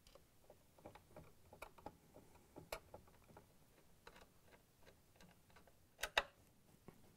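Faint, irregular clicking of a Phillips screwdriver turning the screws that hold the cover on a KitchenAid stand mixer's head, with two sharper clicks about six seconds in.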